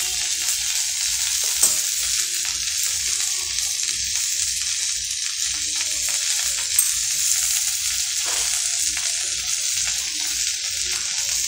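Okra, potato and onion frying in hot mustard oil in a kadhai: a steady sizzling hiss, with a couple of light clicks.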